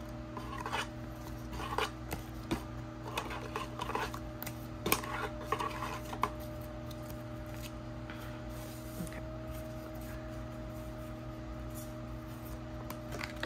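Plastic card sleeves rustling and crinkling, with small clicks and taps, as photo cards are handled and slid into them for about the first six seconds. After that only a steady hum is left.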